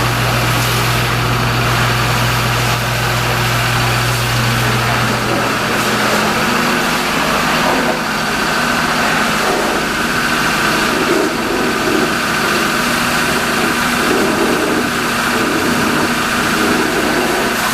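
A motor running steadily under a hiss. Its low hum changes pitch about six seconds in.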